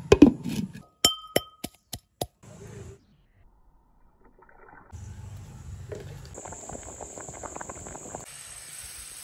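Several sharp clinks in the first couple of seconds, then, from about five seconds in, sambar bubbling steadily as it simmers in a clay pot.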